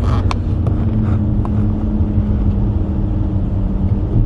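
Car's steady low rumble heard from inside the cabin, with a faint even hum through most of it and a small click near the start.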